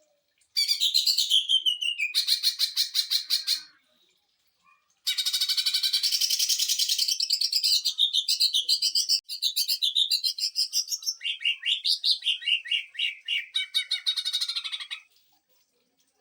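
Green leafbird (cucak ijo) singing its rapid 'sewing-machine' song: fast runs of sharp, closely repeated notes that slide up and down in pitch. A short bout of about three seconds, a pause of about a second, then a long bout of about ten seconds.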